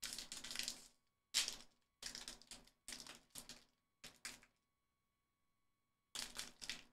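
Foil wrapper of an SP Authentic hockey card pack crinkling and crackling in hands in a series of short bursts as it is worked at to tear it open; the pack is stubborn and won't open. The crinkling stops for a second and a half about two-thirds of the way through, then starts again.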